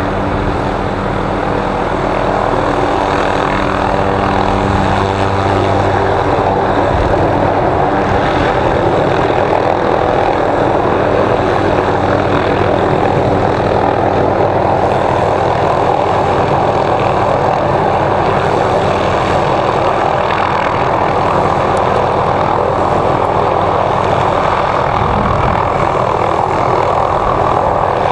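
MD 500-series turbine helicopter hovering close by: a loud, steady beat of main and tail rotors over the turbine whine.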